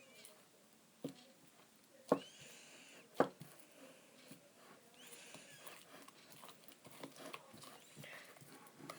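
Fluffy homemade slime being squeezed and poked by fingers: faint squishing and crackling, with three sharp pops of trapped air about one, two and three seconds in.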